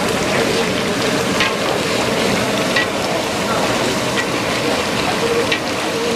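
Curry masala sizzling in hot oil in a large iron kadai: a steady hiss with scattered short pops and spatters.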